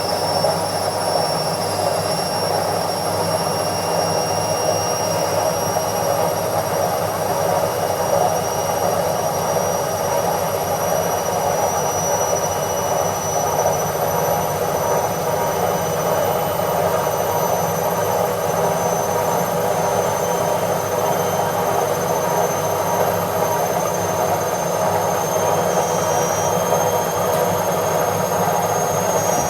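Washing machine in its spin cycle: a steady drum rumble with a thin, high motor whine that rises slowly in pitch.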